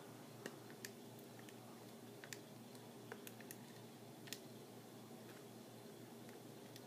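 Keys of a TI-84 Plus Silver Edition graphing calculator being pressed: a scattering of faint, irregular clicks against a near-silent room with a low hum.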